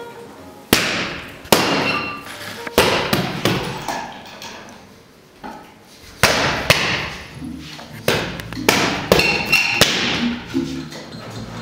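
Punches landing on a hanging black heavy bag: about a dozen sharp thuds in uneven flurries, with a quieter lull about halfway through.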